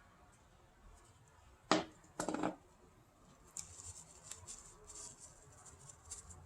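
Hands working on a tower fan's parts during disassembly and cleaning: a sharp scrape about two seconds in and a second, slightly longer scrape right after, then light clicks and rustling.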